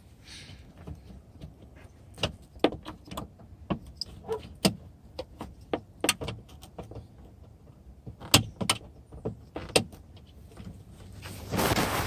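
Irregular clicks and knocks of hands working the window glass and its clip inside a Jeep Wrangler's rear door, trying to free the glass, with a short scraping rustle near the end.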